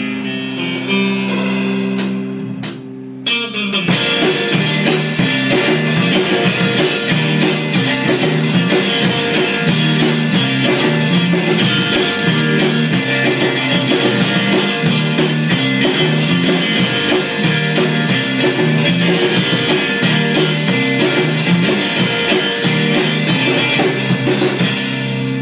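Live rock band playing an instrumental passage on electric guitars and a drum kit. Held, ringing guitar chords open it, and about four seconds in the drums and full band come in loud and keep a steady beat.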